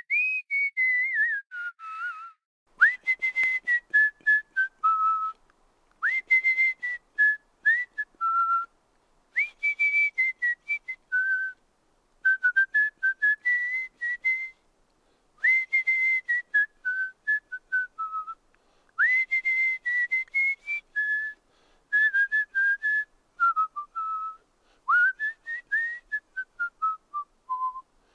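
A person whistling a tune in short phrases, each about two to three seconds long with brief pauses between them. Most phrases open with a quick upward slide and then step down through a run of short notes.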